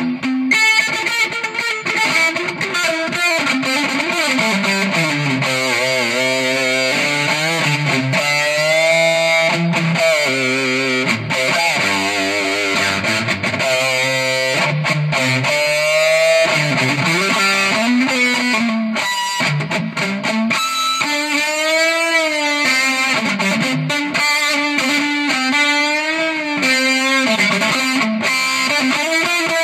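Electric guitar played through distortion and effects: long sustained notes with string bends, wide vibrato and sliding pitch glides.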